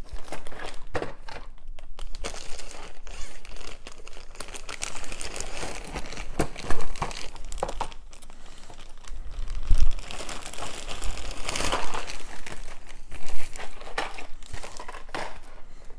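Packaging of boxed miniatures kits crinkling and rustling as it is handled, with a few louder knocks.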